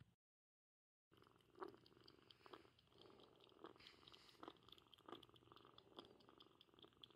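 A young calico kitten purring faintly, swelling and easing about once a second with its breaths, after a second of dead silence at the start.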